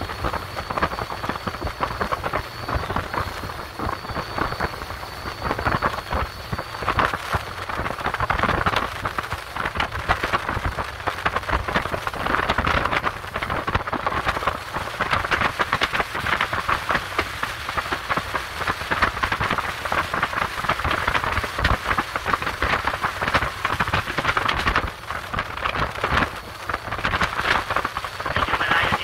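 Sea water splashing and rushing along the hull of a small boat under way: a dense, crackling hiss like heavy rain, over a low rumble. A faint thin high whine sits on top for the first several seconds.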